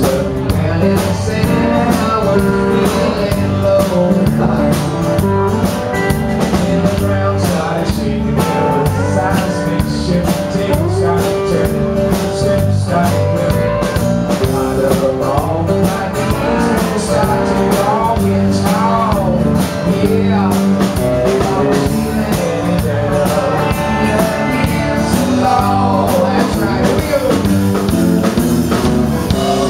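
Live country-rock band playing a song: strummed acoustic guitar, electric guitar, bass and drum kit, with a man singing lead.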